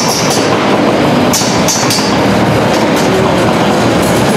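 Combat robots clashing: metal rattling and clattering against each other and the arena floor, with two short harsh scraping bursts about a second and a half in.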